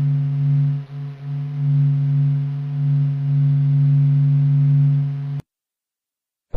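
A space sound of the kind made audible from spacecraft recordings: a steady low droning hum with a few overtones, swelling and fading slightly, with a brief dip about a second in. It cuts off abruptly about five and a half seconds in, leaving a second of silence.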